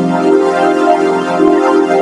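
Synthesizer chord of sawtooth tones through a flanger effect, held steady with a slow shimmering sweep.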